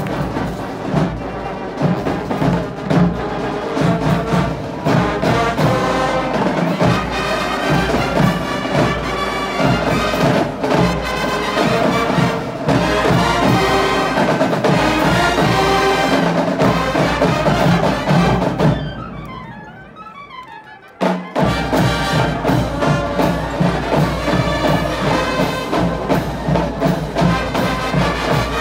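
A school marching band playing, with brass and drums together. Just under two-thirds of the way through, the music falls away into a brief quieter passage of about two seconds, then the full band comes back in with heavy drumming.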